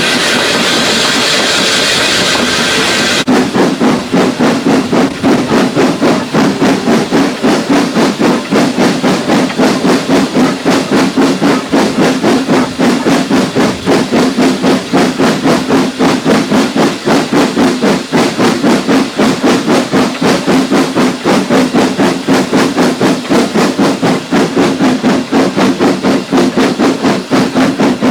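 Steam locomotive: a steady hiss of steam, then, from a sudden change about three seconds in, the locomotive working with quick, even exhaust beats, about three to four a second.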